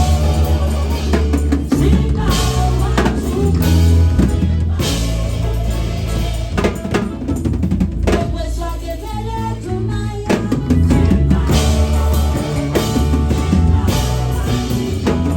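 Live gospel praise music: a band with drum kit and bass playing an upbeat groove under singing. The bass and drums drop back for about two seconds around eight seconds in, then come back in.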